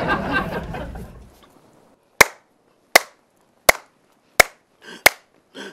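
A man's hand claps at an even, steady beat, about one every three-quarters of a second, starting about two seconds in after the preceding voice fades out.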